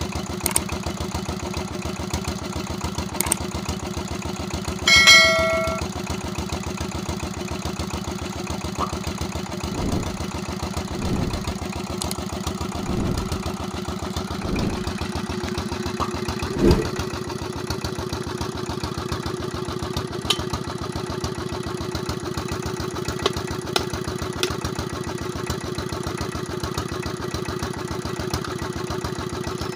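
Single-cylinder Petter diesel engine, 16 HP, running steadily with an even beat of firing strokes. A short bell-like ding sounds about five seconds in, and a few uneven, louder beats break the rhythm between about ten and seventeen seconds in.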